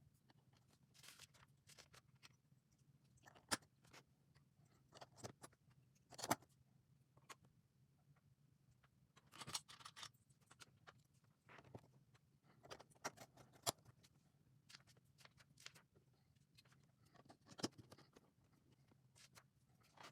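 Plastic LEGO pieces clicking and rattling as they are handled and pressed together, in scattered sharp clicks at irregular intervals, over a faint steady low hum.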